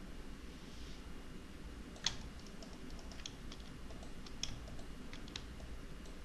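Computer mouse and keyboard clicks: one sharp click about two seconds in, then a string of lighter, irregular clicks, made while placing the points of a curve in 3D modelling software. A low steady hum of room noise lies underneath.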